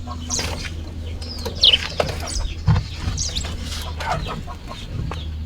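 Birds chirping in short, high, falling calls over a steady low hum, with a couple of sharp knocks.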